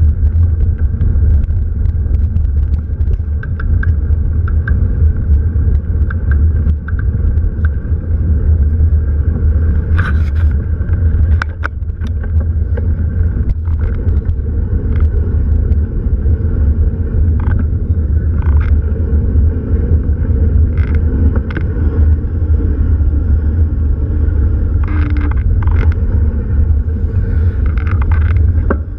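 Steady, loud low rumble of a running vehicle, with scattered light clicks and rattles.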